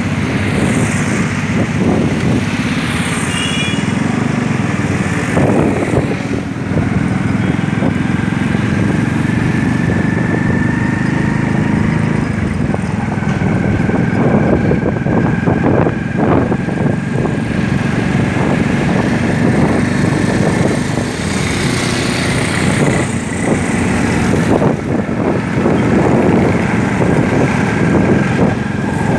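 A vehicle's engine running steadily while driving down a city street, with road noise throughout.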